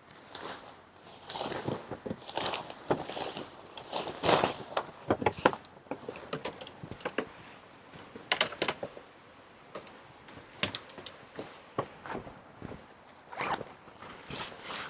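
Irregular rustling, clicks and light knocks of things being handled, in uneven clusters with short gaps.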